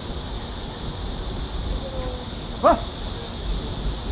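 Insects chirring steadily in a high, evenly pulsing drone over low wind rumble on the microphone. About two and a half seconds in comes a single short, sharp, voice-like call, the loudest sound here.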